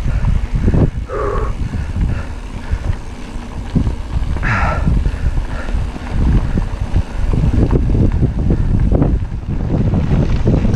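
Wind buffeting the microphone over the low rumble and rattle of a mountain bike rolling along a dirt track. A short pitched sound comes about a second in, and a brief tone falls in pitch about four and a half seconds in.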